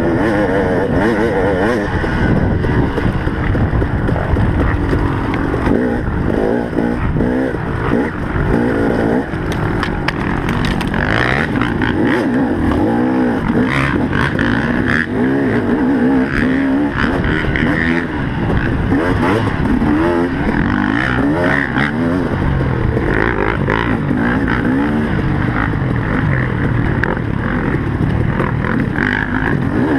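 Dirt bike engine racing at high revs, its pitch rising and falling over and over as the throttle opens and closes and it shifts through the gears.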